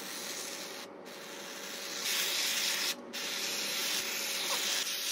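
Aerosol whipped-cream can spraying cream into a pie tin: a steady hiss in three spurts, broken by short pauses about one and three seconds in, and louder from about two seconds in.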